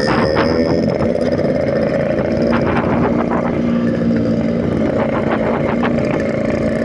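Yamaha RX-King's single-cylinder two-stroke engine running steadily under a riding load, heard from the bike with wind noise on the microphone.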